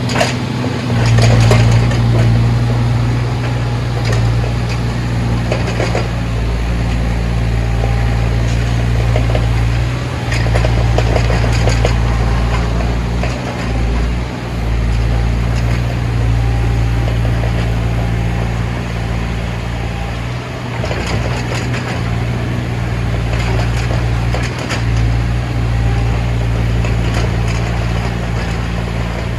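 Backhoe's diesel engine running steadily under work, with scattered clanks and rattles from the working machine several seconds apart.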